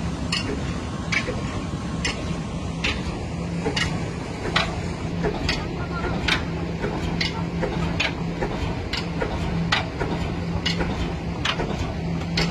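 Old single-cylinder stationary engine with two large spoked flywheels running slowly, driving a tubewell pump: a sharp clack a little more than once a second over a steady rumble and a faint hum.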